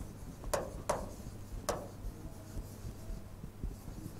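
Faint scratching of hand-writing on a green board as a word is written out, with three sharp taps of the writing tip in the first two seconds.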